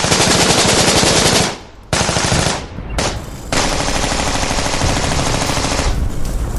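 Machine-gun fire in rapid automatic bursts: a long burst at the start, a short one around two seconds in, and another long burst from about three and a half to six seconds.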